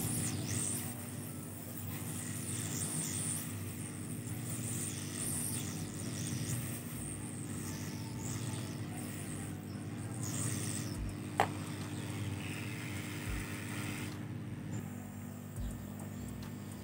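Hot-air rework station blowing onto a circuit board to melt the solder under a shorted TAS5538 surface-mount chip so it can be removed: a steady fan hum with air hiss. One sharp click comes about two-thirds of the way through, and much of the air noise drops away shortly before the end as the nozzle is lifted.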